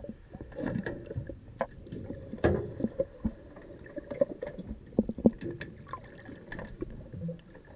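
Muffled underwater sound picked up by a camera in its housing: a low rushing of water with irregular knocks and clicks, the strongest about two and a half seconds in and again around five seconds.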